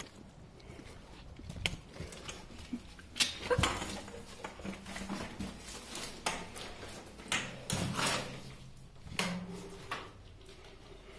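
Irregular footsteps, scrapes and knocks on concrete inside a small concrete infantry pillbox. There are a handful of sharp knocks spaced unevenly, with the clearest a little after halfway.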